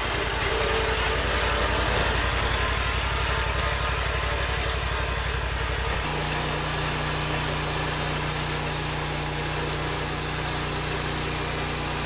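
Portable bandsaw mill running steadily as its band blade saws through a spalted maple log, the mill's engine droning under the cut. About halfway through, the sound shifts abruptly to a different steady drone.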